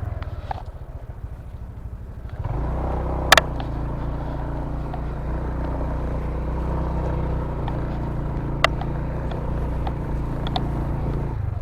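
Motorcycle engine running low for a couple of seconds, then opening up and running steadily under load. Two sharp knocks cut through it, one a few seconds in and another past the middle.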